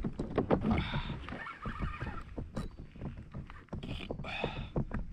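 Spinning reel being wound while playing a hooked fish on a bent rod, with irregular clicks and knocks and two short rasping stretches, about a second in and around four seconds.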